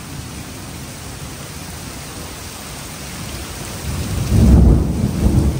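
Heavy thunderstorm rain falling steadily. About four seconds in, a loud, low rumble of thunder breaks in and carries on.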